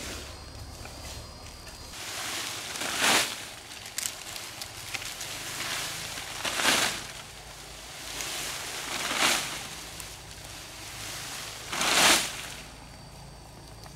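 Leaves rustling in four swishes about three seconds apart, each building for about a second to a peak and then dropping away quickly.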